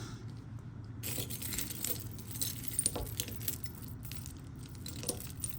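Loose costume jewelry (chains, brooches, metal pieces) clinking and jingling as it is rummaged through and picked over by hand, a patter of small clicks starting about a second in.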